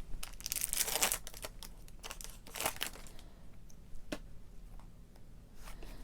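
Foil wrapper of a Pokémon TCG booster pack crinkling and tearing as it is opened, busiest in the first second with another burst midway, then a sharp click and faint rustling.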